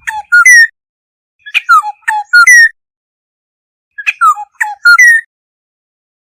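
Black-hooded oriole calling: short phrases of a few clear whistled notes, several gliding downward, repeated about every two and a half seconds with silent gaps between.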